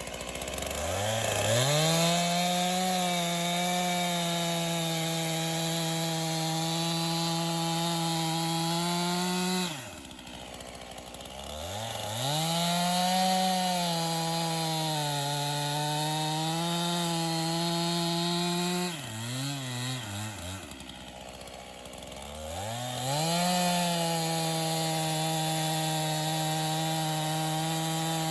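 50cc gas chainsaw held at full throttle, cutting ash wood in three long runs, dropping back toward idle between them, with a short blip of the throttle about two-thirds of the way through.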